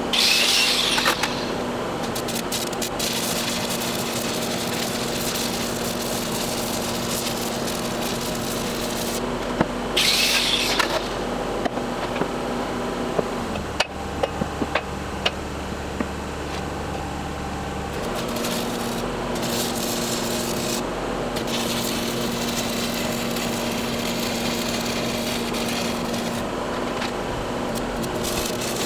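An engine running steadily. Two short, loud hissing bursts come at the start and about ten seconds in. For a few seconds in the middle the engine note changes to a lower, heavier sound, with scattered clicks.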